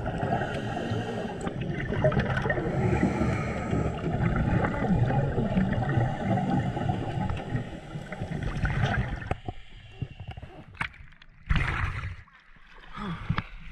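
Scuba regulator exhaust bubbles gurgling past an underwater camera as a dense, steady rumble, thinning about two-thirds of the way through to a few short bursts.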